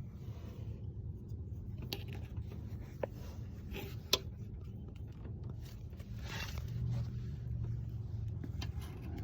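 Handling noise: a few sharp clicks and a drawn-out scrape over a low steady hum.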